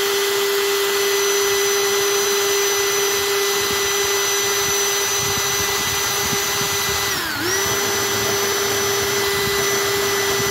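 Electric drill running at speed, spinning an old soldering iron tip against a 100-grit sanding block, a steady motor whine over a rasping hiss. About seven seconds in, the whine dips briefly in pitch and then comes back up.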